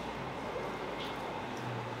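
Quiet, steady room noise with a faint low hum and a single soft tick about a second in.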